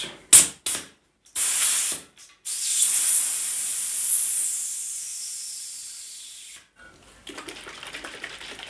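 Compressed air escaping through the valve of a freshly inflated tubeless road bike tire as it is deflated: a few short hisses, then a long, loud hiss that fades away over about four seconds as the tire empties. Faint scratchy handling noises follow near the end.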